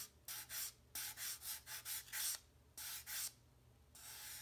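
Sanding block rubbed in short back-and-forth strokes, about three a second, over the underside of a balsa wood glider wing to flat-sand it, with a couple of brief pauses.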